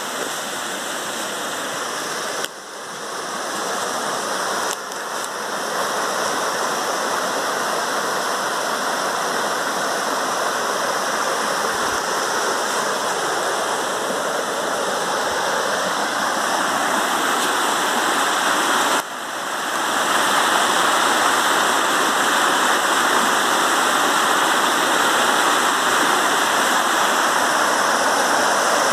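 Steady rushing noise, with brief sudden dips about 2.5, 5 and 19 seconds in.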